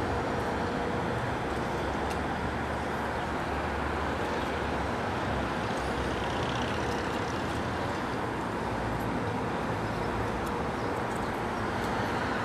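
Heritage electric streetcar running along its track, heard from aboard: a steady, even running noise of wheels and motor with a few faint clicks.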